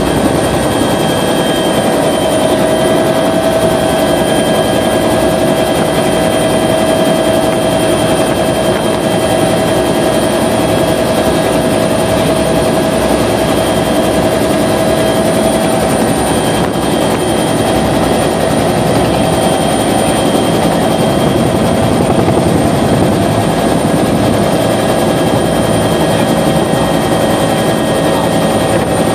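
Helicopter in steady flight heard from inside the cabin: a constant loud rotor and engine drone with thin, steady high whines on top.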